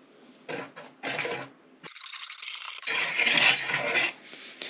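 Metal wire whisk beating pancake batter in a plastic mixing bowl, a rattling scrape of wire against the bowl: a few separate strokes at first, then about two seconds in a longer run of fast whisking.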